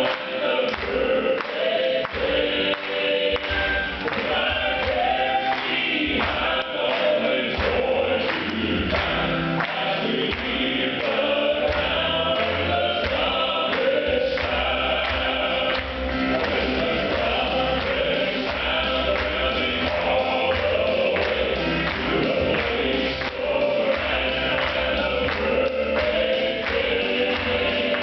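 Male southern gospel quartet singing in close four-part harmony.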